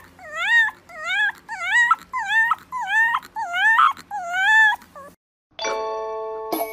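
A fluffy white puppy whining in a quick run of high yelps, about two a second, each dipping and then rising in pitch. The calls stop about five seconds in, and bell-like chime tones start near the end.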